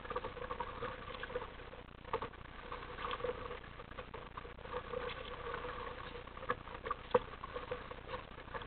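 Small waves lapping and splashing against a plastic sit-on-top kayak's bow as it moves through choppy water, with many small irregular taps and a sharper slap about seven seconds in.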